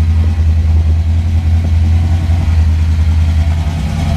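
Ford 5.0-litre (302) small-block V8 of a 1988 Mustang GT idling steadily and evenly, which the owner takes for running as it should.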